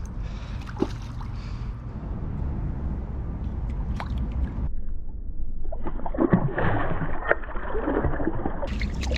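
Hooked largemouth bass thrashing and splashing at the surface in the shallows as it fights on the line. The heaviest splashing comes over the last three seconds or so, close and muffled.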